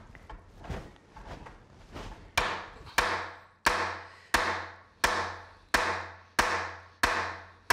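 A wooden newel post being knocked down onto its base with a steady run of evenly spaced blows, about one every two-thirds of a second, each a sharp knock that rings briefly. Before the blows start there are a couple of seconds of softer knocking and scraping as the post is slid down.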